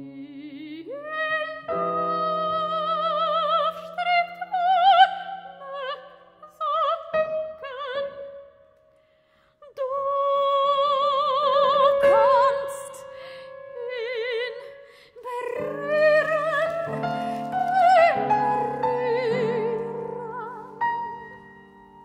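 Soprano singing with wide vibrato over held piano chords, in a contemporary art song for voice and piano. The music breaks off for about a second halfway through, then the voice returns on a long held note and climbs.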